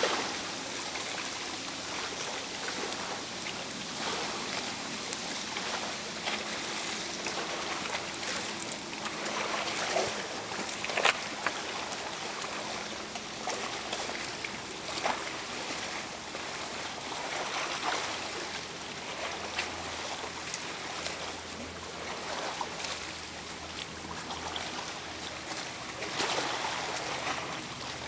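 Choppy lake water lapping and splashing in small irregular slaps, with one sharper splash or knock about eleven seconds in.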